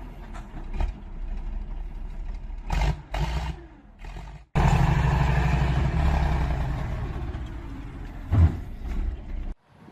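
Heavy vehicle engine running under load, with knocks and clatter. The sound cuts off abruptly about halfway through and again near the end, then resumes steady and loud.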